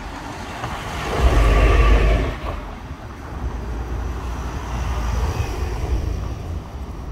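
A motor vehicle driving past on a paved town street, a rushing sound with low rumble that peaks between about one and two and a half seconds in, then eases to a steady background of street traffic.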